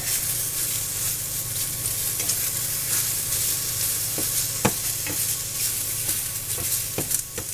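Green beans and mushrooms sizzling in hot coconut oil in a small frying pan as they are stir-fried and tossed, with a few sharp clicks in the second half.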